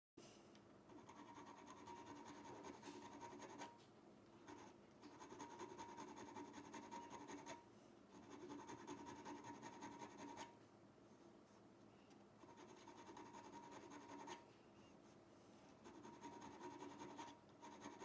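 Faint scratchy rubbing made by hand in quick repeated strokes. It comes in runs of about three to four seconds, with short pauses between them.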